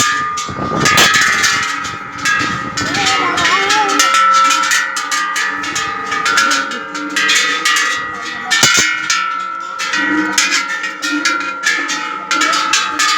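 Thai temple bells struck over and over in quick, irregular succession: loud, overlapping metallic clangs whose ringing tones carry on between strikes.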